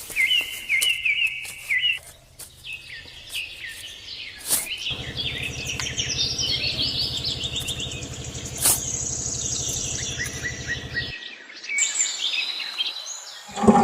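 Small birds chirping and trilling repeatedly. A steady low hum runs beneath them for several seconds in the middle and cuts off abruptly.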